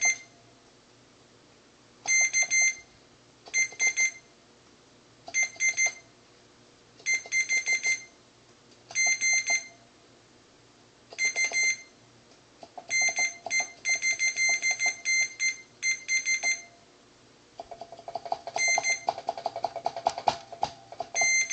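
A multimeter's continuity beeper sounds a high beep in short, stuttering bursts, one burst every second or two, each time a keyboard key contact closes the circuit as the keys are tested one at a time. Near the end the beeping runs longer and more broken, over faint scratchy clicking.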